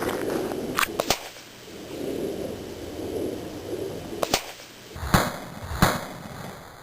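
Sharp cracks of a BAM 5.5 mm air rifle firing explosive-filled pellets that pop: a close pair about a second in, then three more after four seconds, the last two the loudest.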